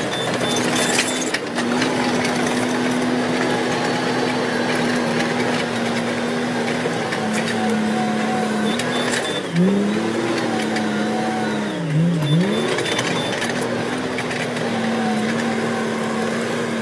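Heavy diesel engine of a bulldozer running steadily under load. Its pitch sags and recovers twice, about ten and twelve seconds in.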